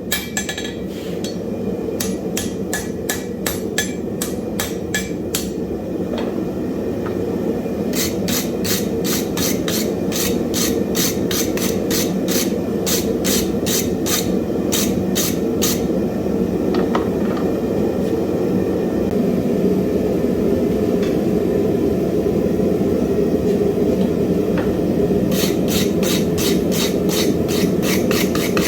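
Hammer blows on hot wrought iron at the anvil, in runs of quick, evenly spaced strikes about two a second with pauses between the runs, over a steady low noise.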